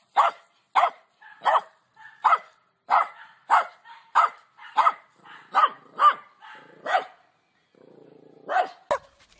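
Dog barking repeatedly in short, sharp barks, about one and a half a second, pausing about seven seconds in before one more bark near the end.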